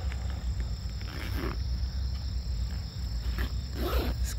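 Daytime outdoor ambience: a steady high insect drone with a low rumble under it, and short harsh bird calls about a second and a half in and again near the end.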